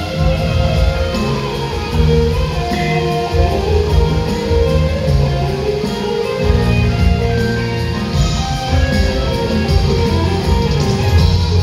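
Loud show music played through the circus arena's sound system, with a heavy, pulsing bass.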